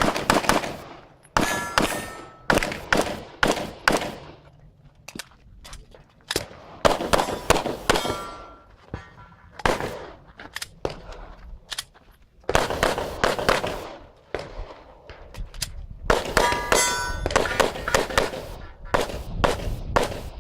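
ZEV pistol firing strings of shots with bad ammunition, several struck steel plates ringing after hits. The shots come in irregular bursts broken by pauses of a second or two.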